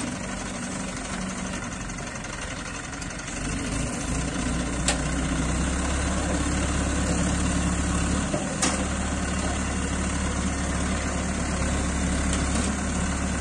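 Diesel engine of an ACE hydra mobile crane running steadily, growing louder and deeper about three and a half seconds in, as if brought up in revs. Two sharp clicks are heard, about five and nine seconds in.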